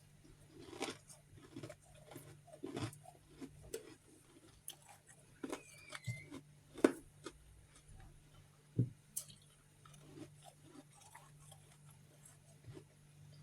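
Close-up chewing of chunks of refrozen freezer frost: irregular icy crunches and bites, the sharpest about seven and nine seconds in.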